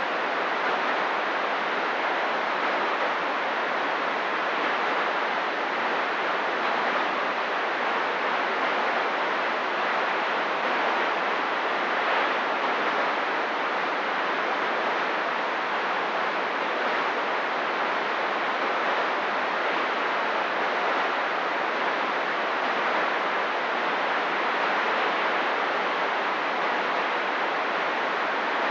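Steady hiss of static from a CB radio receiver with the squelch open on a quiet channel.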